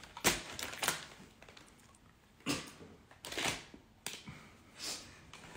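A dog sniffing close to the microphone, in about five short, irregularly spaced bursts.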